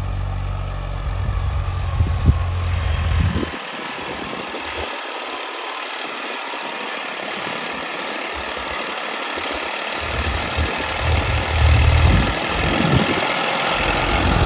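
New Holland 3032 tractor's diesel engine running under load while pulling a cultivator through the soil. The deep engine sound drops away about three seconds in and comes back after about ten seconds, growing louder near the end.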